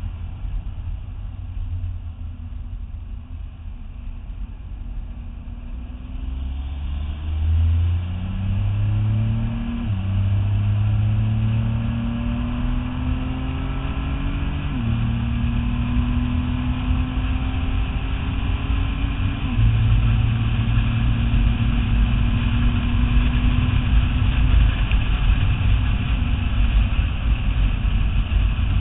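Nissan GT-R's twin-turbo V6 accelerating hard through the gears: the engine note climbs, drops at each of three upshifts, then runs steady at speed. Wind and road noise grow as the speed builds.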